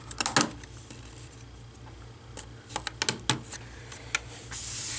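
Sharp plastic clicks and snaps in a few quick clusters as a metal spudger pries along the seam of an Acer Chromebook 11 CB3-111's plastic bottom cover, its clips letting go. A short rustle of handling near the end.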